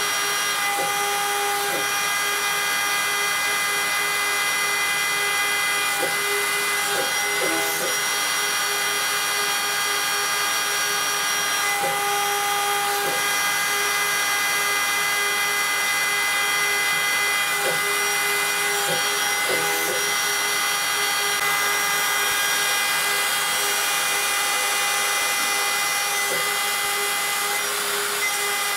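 Homemade CNC router's spindle running steadily with a high whine while a small end mill cuts 10 mm AlCuMg1 aluminium plate. Lower tones underneath briefly waver in pitch several times.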